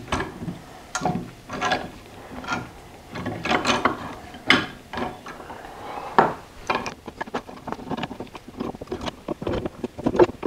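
A steel C-clamp being fitted and screwed down to press a tight shaft coupler onto the drill press table's crank shaft. It makes irregular metal clicks, knocks and scrapes as the clamp's jaws and screw work against the cast-iron housing.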